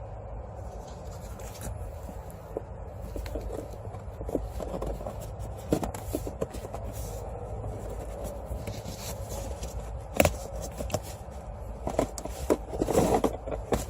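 Plastic parts of a car's cabin air filter housing being handled: scattered clicks, knocks and scraping, the sharpest knock about ten seconds in and a burst of rustling near the end, over a steady low hum.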